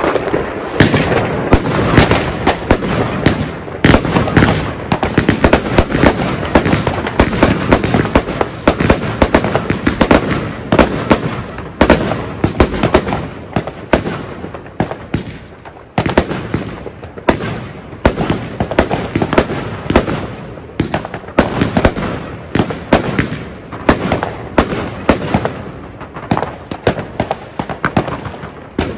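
Argento Leviathan firework going off: a dense, continuous stream of bangs and crackling pops, with a short lull about sixteen seconds in before it picks up again.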